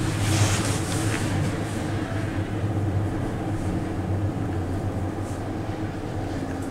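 Ride noise inside a 2005 Doppelmayr eight-seat gondola cabin travelling along the haul rope: a steady low hum and rumble, with a brief hiss in the first second.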